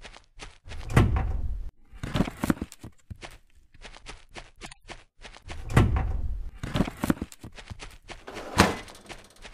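Added stop-motion sound effects: quick light footstep ticks, with heavy thumps as sun loungers are set down, about a second in, again around six seconds, and once more near the end.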